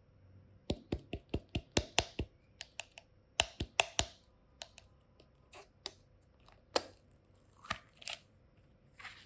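Sharp clicks and taps of small objects being handled: a quick run of about a dozen in the first few seconds, then sparser clicks and soft rustles.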